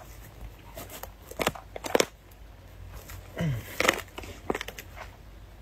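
Dry bamboo husks and leaf litter crackle and snap as someone shifts and sits down among freshly cut bamboo shoots. There are several sharp cracks, the loudest about two seconds in and just before four seconds, with a short low sound sliding down in pitch between them.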